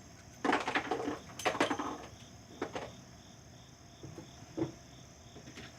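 Clicking and rattling from handling gear between guns: two quick runs of sharp clicks in the first two seconds, then a couple of single clicks later. Crickets chirp steadily in the background.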